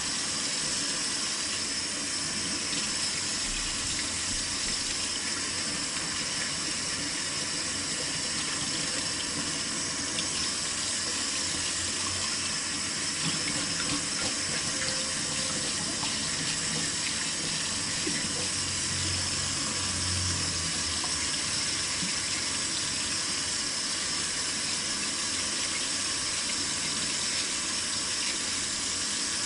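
Water running steadily from a kitchen tap into a sink, with a few faint clicks and knocks in the basin.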